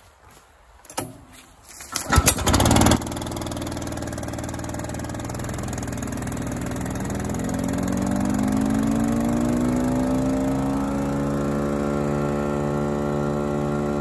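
Split-Fire 4090 wood chipper's Honda GXV390 engine being pull-started on choke, catching about two seconds in. It then runs steadily, rising in pitch for several seconds as it brings the chipper blades up to speed, and holds steady near the end.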